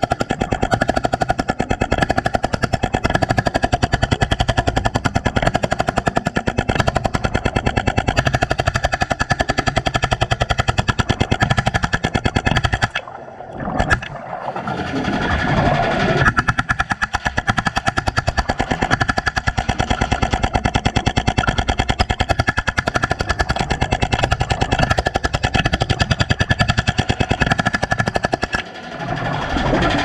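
BR45 hydraulic jackhammer hammering underwater in a rapid, steady stream of blows as it chips concrete. It stops briefly twice, about halfway through and again near the end, then starts back up.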